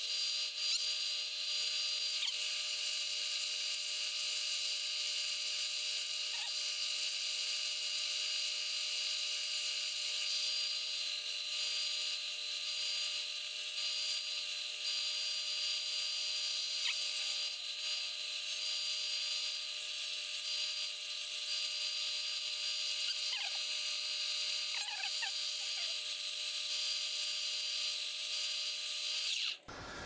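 Belt-and-disc sander running with a steady high-pitched whine while a small triangular mounting piece is sanded on the disc. The motor cuts off suddenly near the end.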